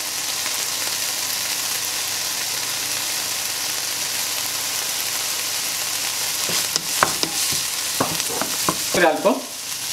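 Diced boneless chicken, onion, ginger and green chilli sizzling in oil in a nonstick frying pan, a steady hiss. In the second half a wooden spatula stirs the pieces and knocks against the pan several times.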